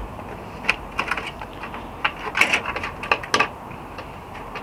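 Irregular light clicks and taps of plastic trim and screws being handled as a Land Rover Defender's side light and headlight trim come off, busiest in the middle.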